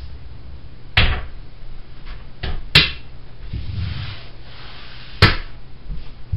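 Sharp clicks of pool balls on the table, four in all: one about a second in, a faint one and a loud one close together near three seconds, and another a little after five seconds.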